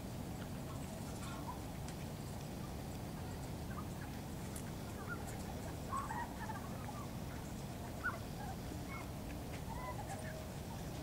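Short, scattered bird calls, the clearest about six and eight seconds in, over a steady low background rumble.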